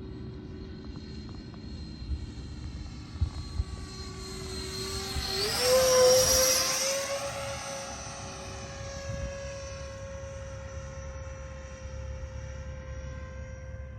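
Electric ducted fan (90 mm Wemotec fan) of an RC L-39 Albatros model jet whining as it flies past; about five seconds in the whine steps up in pitch and grows loudest as the jet passes close, then holds at the higher pitch. Wind rumbles on the microphone underneath.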